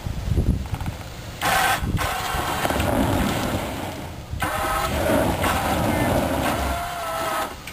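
Front-bumper electric winch on a Jeep pulling the vehicle up a rock ledge in bursts. A short whine comes about a second and a half in, then a longer steady whine from about four and a half seconds until just before the end, over a low engine rumble.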